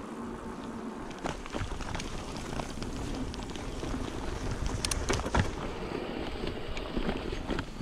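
Mountain bike riding over a dirt trail: tyre rolling noise with scattered clicks and knocks as the bike rattles over the ground, and wind on the microphone.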